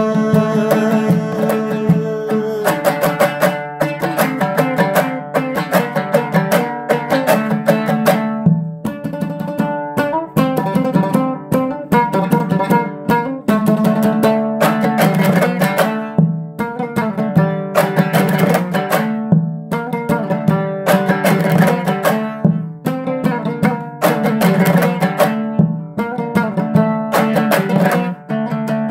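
Instrumental break of a Hazaragi song: a dambura, the Hazara two-string long-necked lute, strummed in a fast, steady rhythm.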